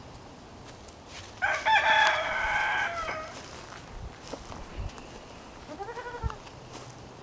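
A rooster crowing once, a loud call of nearly two seconds; a shorter, quieter animal call follows near the end.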